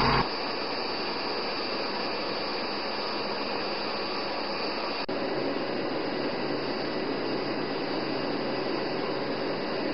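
Steady aircraft engine drone heard inside a military transport plane's cargo hold: a dense, even noise with a faint high whine. A lower-pitched vehicle engine hum cuts off just after the start, and there is a brief break about five seconds in.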